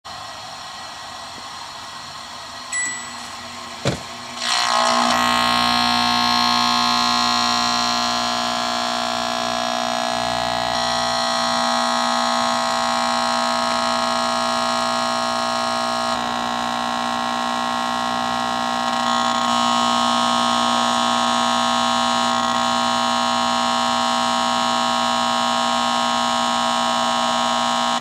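Microwave oven started with a small portable TV inside: a short beep, a click, then a loud, steady, shrill electrical buzz with many overtones as the TV is bombarded by the microwaves. Before it starts, faint hiss from the TV tuned to static.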